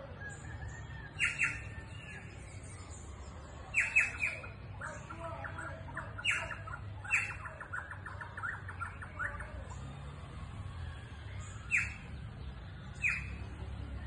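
Carriquí jays calling: loud, harsh squawks that slide down in pitch, some single and some in quick clusters of two or three, with a fast rattling run of notes in the middle. Thin, high chirps go on throughout.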